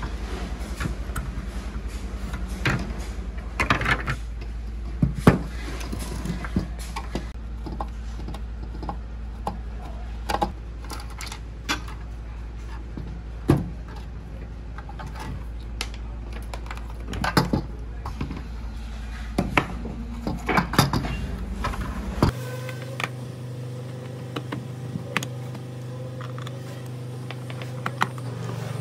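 Scattered clicks and knocks of small parts and tools being handled over a steady low hum. About 22 seconds in, the sound cuts abruptly to a different, higher steady hum.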